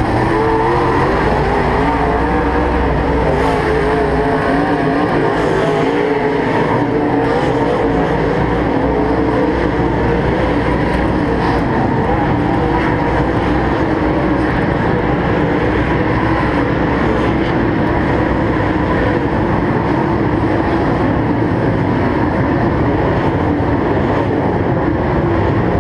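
Dirt late model race car's V8 engine running at low, slightly wavering revs, heard from inside the cockpit as the car rolls slowly off the track after racing.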